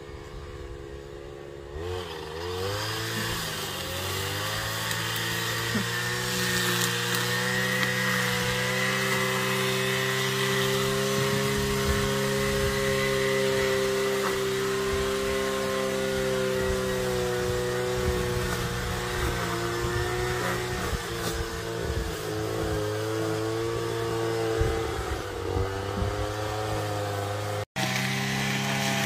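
A small engine running, like a chainsaw or power tool. It revs up about two seconds in, then runs at a fairly steady pitch.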